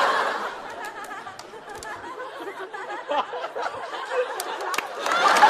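Studio audience laughing at a punchline, the laughter dying down to scattered chuckles and murmuring, then applause breaking out near the end.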